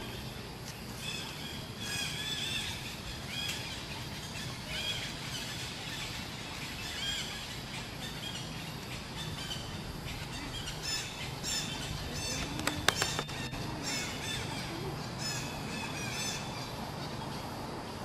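Birds chirping and calling over and over in short, arching notes against a low steady outdoor background, with a few quick sharp clicks about two-thirds of the way through.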